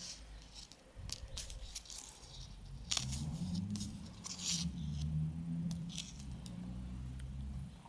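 Faint scattered clicks and light rattles of small metal jump rings and clay charms on a phone strap being handled. A low steady hum joins in about three seconds in and stops just before the end.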